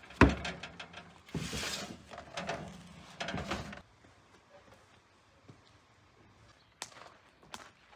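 Metal clatter and scraping as a round baking pan is taken out of a small electric countertop oven, starting with a sharp knock of the oven door or pan. After a quieter stretch, two light knocks come near the end.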